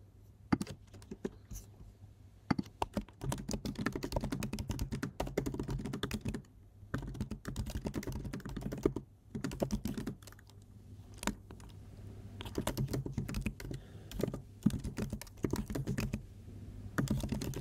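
Typing on a computer keyboard: runs of quick, irregular keystrokes broken by short pauses, after a few separate clicks in the first couple of seconds.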